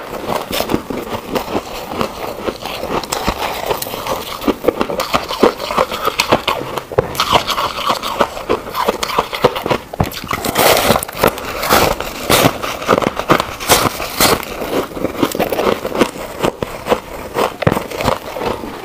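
Close-miked crunching and chewing of frost ice: dense crackles and crunches throughout, with heavier bites about ten seconds in and again a few seconds later.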